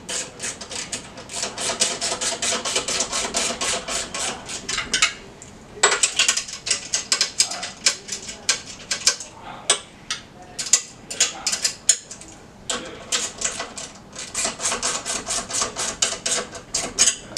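Ratchet handle with an 8 mm socket clicking rapidly as it tightens the nuts on a metal hose reel frame, in long runs of fast clicks with short pauses between them.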